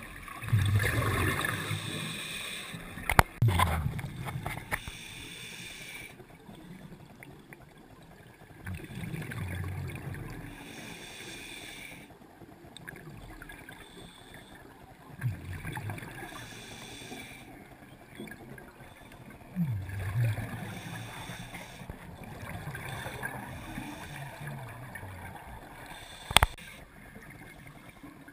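Scuba regulator breathing underwater: bursts of exhaled bubbles gurgling and rumbling every few seconds, with a faint hiss between them. Two sharp clicks, one about three seconds in and one near the end.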